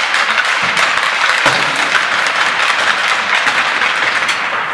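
Applause: many hands clapping at once.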